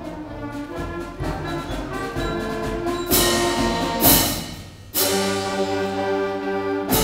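Middle school concert band playing a march, brass and woodwinds holding chords. Two loud percussion crashes come about three and four seconds in; the sound dies down briefly, then the full band comes back in on a loud held chord about five seconds in.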